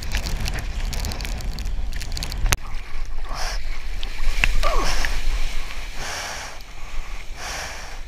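Breaking surf washing up the shore, with wind buffeting the mic, then water sloshing and splashing around a surfboard in choppy water, in regular splashes about every second and a half.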